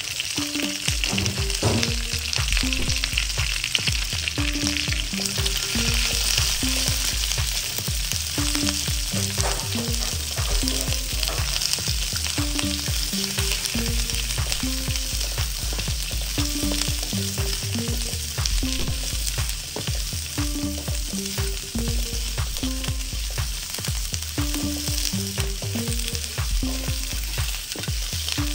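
Onions and peppers sizzling as they are stir-fried in a hot steel wok, with a wooden spatula stirring and knocking against the pan. Quieter background music with a steady bass beat and a repeating short melody runs underneath.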